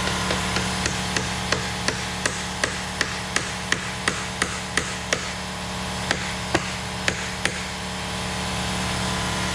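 Hammer tapping a metal support brace into a drilled hole in a motorcycle subframe: a run of about fifteen quick, even strikes at roughly three a second, then a short pause and four more spaced-out blows. A steady mechanical hum runs underneath.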